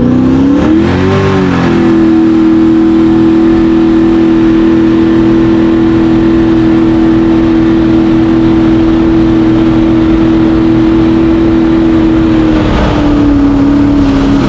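Mini jet boat engine revving up over the first second or so, then held at steady high revs, its pitch easing down a little near the end.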